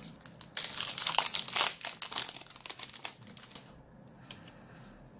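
Foil wrapper of a Yu-Gi-Oh booster pack being torn open and crinkled by hand. The crinkling is busiest from about half a second to two seconds in, then thins to faint rustles and dies away.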